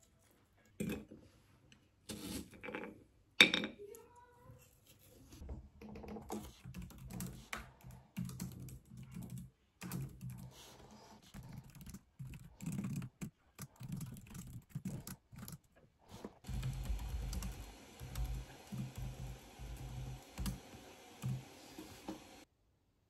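Typing on a compact white wireless computer keyboard: irregular runs of soft key clicks. A few sharper knocks come in the first few seconds, the loudest about three and a half seconds in.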